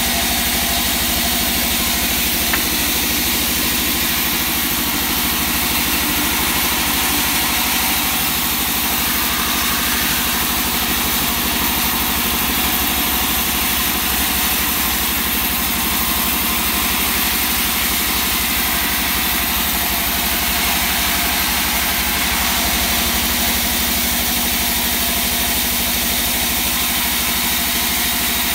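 Large vertical band sawmill running steadily, its drive giving a constant machine sound with a fast low pulse underneath.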